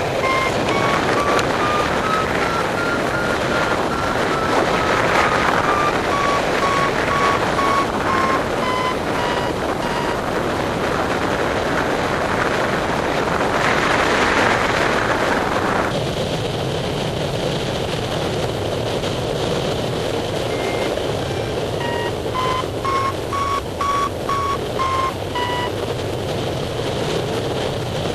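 Paragliding variometer beeping in short tones over steady rushing wind on the microphone. The beeps step up and then down in pitch, signalling climb in lift, fall silent for a while along with a gust of wind, then come back quicker near the end.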